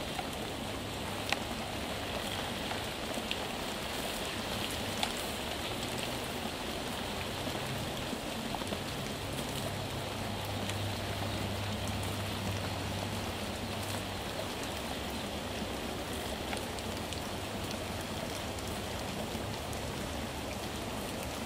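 Steady rain falling, an even hiss with a few sharp ticks of drops in the first few seconds. A faint low hum sits under it midway through.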